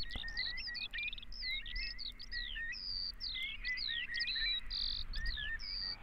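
Birds singing: a busy, unbroken run of short high chirps and whistles, many of them sliding down in pitch, some held briefly on one note.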